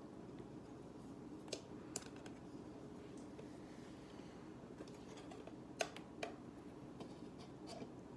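Light plastic clicks and taps from hands handling a clear plastic enclosure and its snap-on mesh lid: about six scattered clicks, the sharpest two close together about six seconds in, over a low steady room hum.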